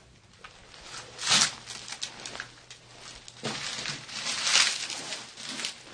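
Footsteps crunching on a debris-strewn floor, a few irregular crunches, the loudest about a second and a half and four and a half seconds in.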